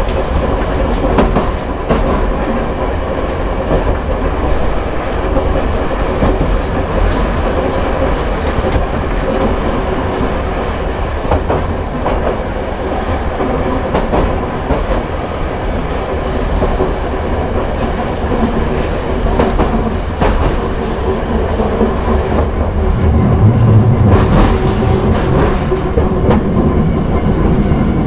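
Hankai Tramway Mo 161-class tram running on its track, its nose-suspended traction motors and gears giving a steady hum, with the wheels clicking over rail joints. The running noise grows louder and deeper about 23 seconds in.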